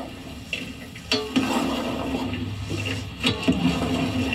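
Chopped okra handled in a bowl: a splashy, rushing sound with a few sharp clicks.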